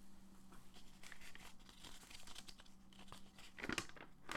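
Faint rustling and light clicks, typical of a handheld phone being moved, over a steady low hum; a slightly louder rustle comes near the end.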